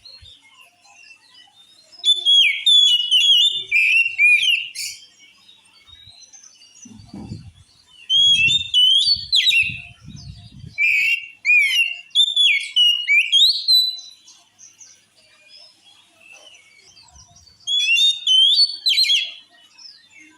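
Oriental magpie-robin (kacer) singing in phrases of rapid, high whistled notes that glide up and down, each phrase a few seconds long with short pauses between. It is a full, aggressive song of the kind used to provoke other kacer. A few low thumps come around the middle.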